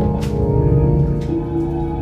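Live experimental drone music: layered, sustained organ-like tones held over a heavy low rumble, with two faint clicks, one near the start and one about a second in.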